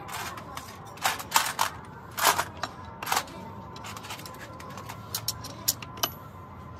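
Irregular metallic clinks and taps of steel gearbox parts and hand tools knocking together during truck gearbox assembly, the loudest cluster about one to three seconds in.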